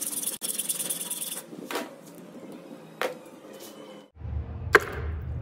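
Blade of a homemade motor-driven hacksaw machine rasping through steel bars held in a vise, stopping about a second and a half in, followed by a few light knocks. Near the end a low hum comes in, with a single sharp click, the loudest sound here.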